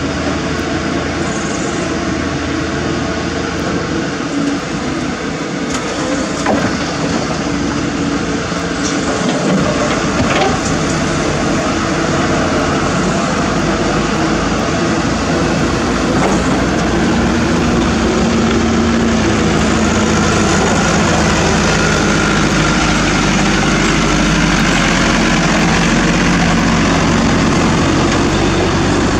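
CAT 320D hydraulic excavator and diesel truck engines running while rock and dirt are loaded into a dump truck, with a few sharp knocks of stone. The engine noise grows louder and steadier about halfway through.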